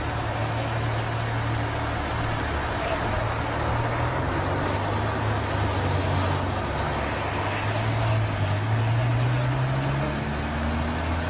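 Steady engine drone: a low hum that rises slightly in pitch about two-thirds of the way through, over a constant rushing noise.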